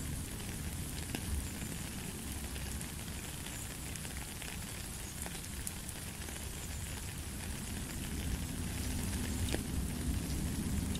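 Steady rain falling on a gravel path and into a puddle, with scattered individual drops ticking clearly over an even hiss and a low rumble underneath. It grows a little louder near the end.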